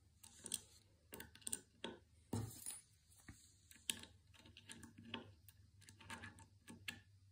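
Faint scattered clicks and light scrapes of small metal hardware being handled, as a bolt is threaded by hand into a linear bearing block on a CNC z-axis carriage plate.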